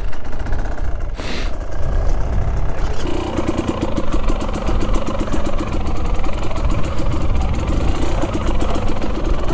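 2021 Husqvarna TE250i two-stroke dirt bike engine running on the trail, over a heavy low rumble. From about three seconds in, the engine holds a steady note.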